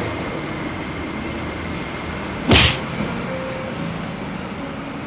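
A single quick whoosh, about half a second long and the loudest thing here, roughly halfway through, over a steady background hum.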